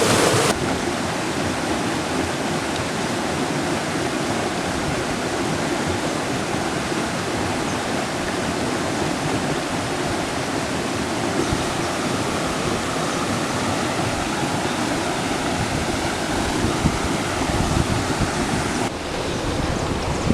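Steady rushing of flowing water, with wind buffeting the microphone in low gusts. The sound's character changes abruptly twice, about half a second in and near the end.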